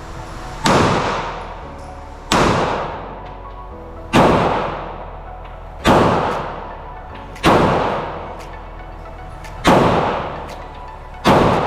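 Seven single pistol shots from a 9mm Glock 48, fired one at a time in slow aimed fire about one and a half to two seconds apart, each with a long echoing tail.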